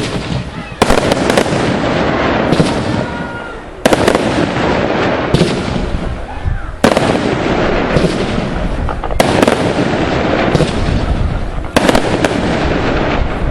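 Aerial fireworks display: shells bursting in rapid succession, a loud bang about every second or so, with crackling in between.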